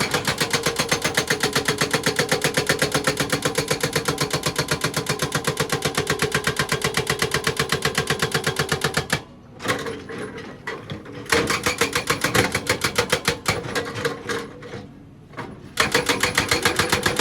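Excavator-mounted hydraulic breaker hammering rock in a rapid, steady rhythm of blows. About nine seconds in it falls quieter and irregular for several seconds, then resumes at full rate near the end.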